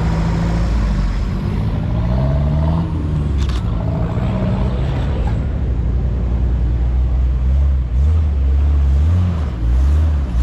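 Off-road 4x4 engine running and being revved, its pitch rising and falling several times over a deep rumble that grows louder near the end.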